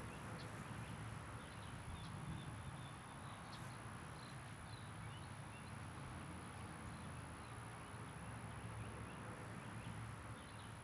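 Faint outdoor ambience: a steady low rumble with a few faint bird chirps and a constant thin high tone.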